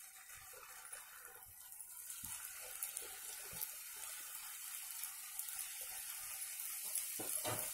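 Maida dough strips for masala nimki sizzling as they deep-fry in hot oil in a steel pan: a steady hiss with light crackles, building up over the first couple of seconds as the pieces go in.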